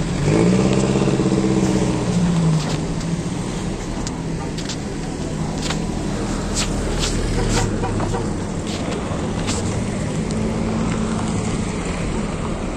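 Pickup trucks driving slowly past at close range, their engines running, loudest as the first one passes. Several sharp knocks and rattles come in the middle.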